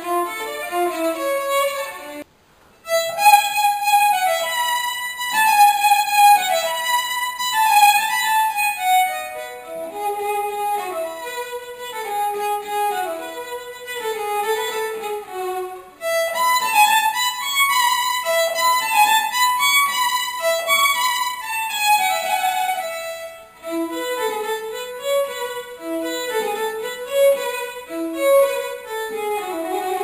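Violin playing a bowed melody of short held notes, with a sudden brief silence about two seconds in before the playing resumes.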